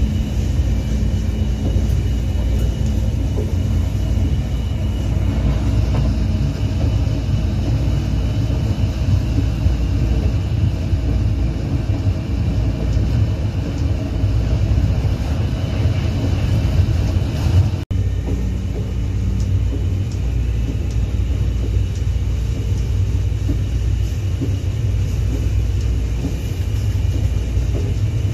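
A train running along the track, heard from the driver's cab: a steady, loud rumble with a few faint humming tones over it, dropping out for an instant about eighteen seconds in.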